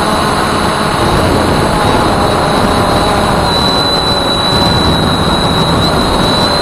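Voyager 3 quadcopter drone's motors and propellers running steadily as it hovers, heard loud from its own onboard camera: an even rushing noise with a thin, steady high whine over it.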